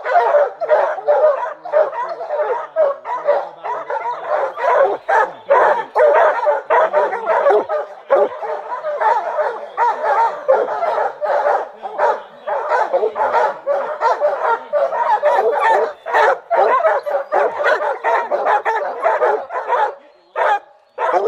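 A pack of bear hounds barking and baying continuously, many voices overlapping, as they bay on a bear. The din eases briefly near the end.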